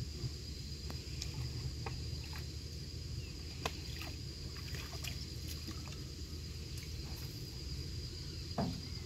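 Crickets trilling steadily on one high note over a low rumble, while a small fishing boat moves on the water with scattered light knocks and splashes; the sharpest knock comes about three and a half seconds in.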